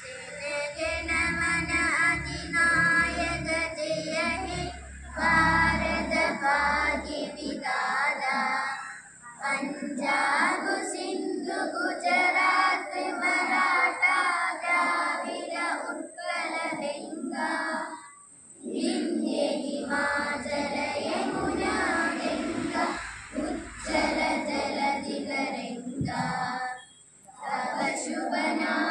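A large group of schoolchildren singing together in unison, in long sung phrases with short pauses for breath between them.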